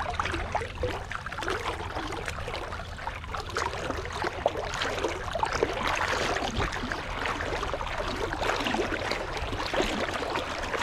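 Shallow seawater sloshing and splashing: a continuous fizzing wash full of small splashes and gurgles.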